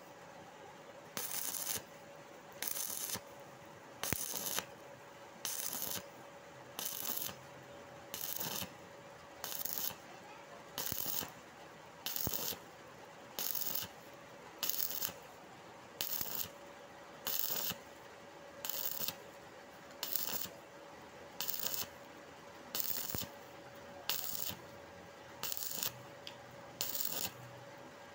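Stick (arc) welding electrode crackling and sizzling in short bursts, about twenty in a row, roughly one every second and a half: the arc is struck and broken again and again to build up the weld a little at a time across a very wide gap between two iron bars. A faint steady tone runs underneath.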